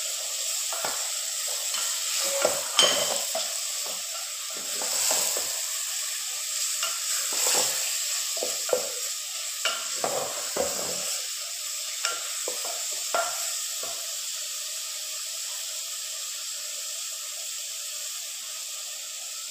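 Minced beef with onion, tomato and spices sizzling in hot oil in a metal pot while a wooden spatula stirs it, with irregular scrapes and knocks against the pot; the stirring stops about 14 seconds in and the sizzling goes on steadily.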